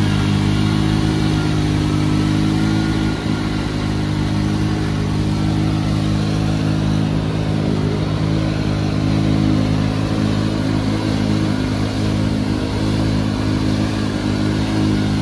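ATV engine running under steady throttle, its pitch held nearly constant, while the wheels spin in deep mud and throw it up.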